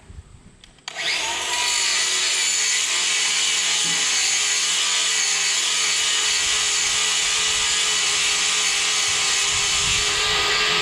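A power tool starts about a second in, its pitch rising briefly as it spins up, then runs steadily with a loud high hiss.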